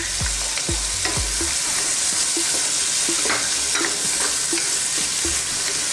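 Squid frying in oil in a wok, stirred with a wooden spatula: a steady sizzling hiss with a regular rhythm of spatula strokes, and a few low knocks in the first second and a half as the squid is scraped off its bowl into the wok.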